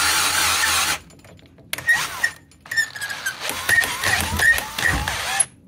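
Cordless drill used as a variable-speed motor, turning a pulley shaft held in its chuck. It runs steadily for about a second and cuts off, then starts and stops in a series of short, uneven runs with pitch sweeping up and down as the trigger is worked.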